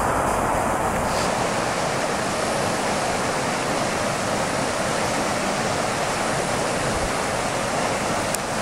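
Mountain creek water rushing over rocks and shallow rapids, a steady, even rush.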